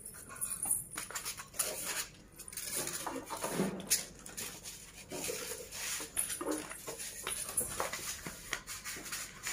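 Packaging being handled: plastic bag, paper and polystyrene pieces rustling, with many small clicks and knocks against a glass-top gas stove.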